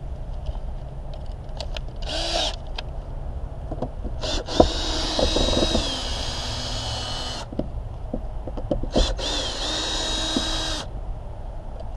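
Cordless drill/driver backing out the screws that hold an interior trim panel. It runs in three bursts: a brief one about two seconds in, a longer one of about three seconds whose whine drops in pitch partway through, and another of about two seconds near the end.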